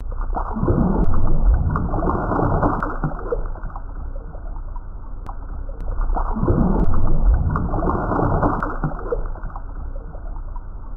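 Muffled underwater water noise, a low, bubbling wash that swells twice: about half a second in and again about six seconds in.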